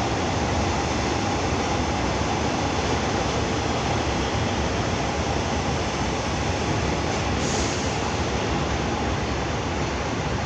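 Train running on the rails: a steady rumble and rush that eases slightly toward the end, with a short hiss about seven and a half seconds in.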